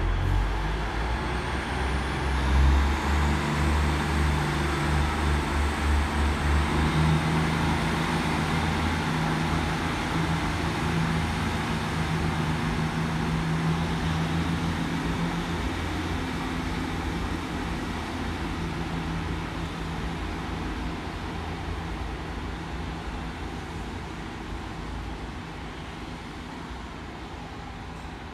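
Diesel train engines running with a low, steady note that pulses for the first several seconds. The sound is loudest a few seconds in, then fades gradually as the train moves off.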